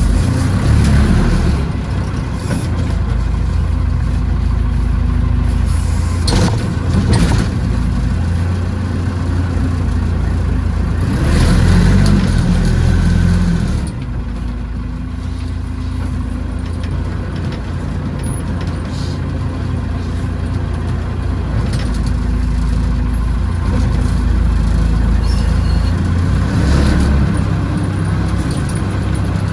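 Backhoe engine running and working, its low drone rising and falling as the revs change, with a few sharp knocks and a louder push about a third of the way in.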